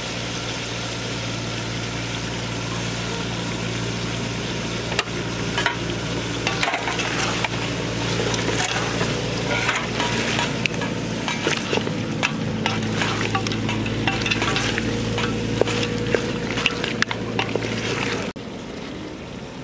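Chicken pieces sizzling in a large metal pot while being stirred, with frequent scraping and clattering from about five seconds in, over a steady low hum. The stirring stops abruptly near the end.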